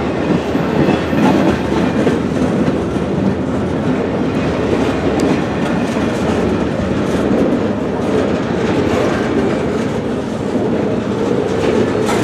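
Freight train cars rolling past: a steady rumble of steel wheels on the rails, with a few faint clicks.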